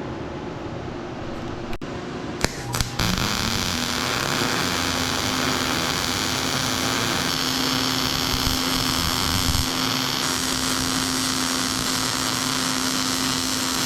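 Two or three clicks, then an electric motor starts and spins up within a second to a steady whine over a loud hiss, running on evenly.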